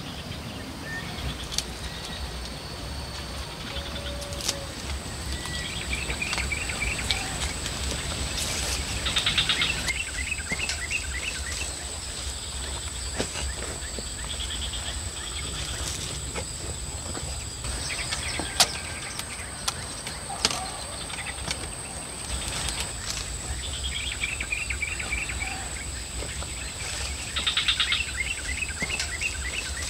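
Outdoor natural ambience: a steady high-pitched insect drone, with short rapid trilling animal calls every several seconds and scattered clicks and knocks.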